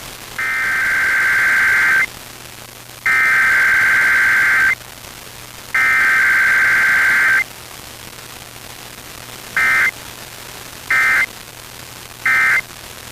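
EAS/SAME digital data bursts: the header sent three times as long warbling screeches, then the end-of-message code as three short screeches, over a steady hiss. Header then end-of-message with no attention tone or voice message is the form of a required weekly test.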